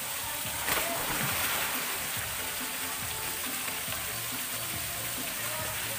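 A person jumping into a swimming pool: one splash about a second in, over the steady rush of water from a small rock waterfall, with background music playing.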